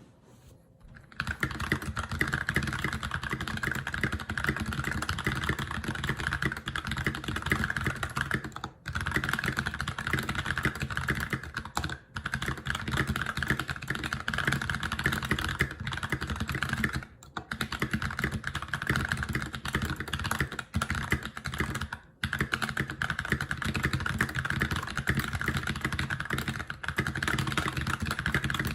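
Steady typing on a GMMK TKL mechanical keyboard with lubed Holy Panda tactile switches (Tribosys 3203) and GMK keycaps. A dense run of key clacks starts about a second in, broken by a few short pauses.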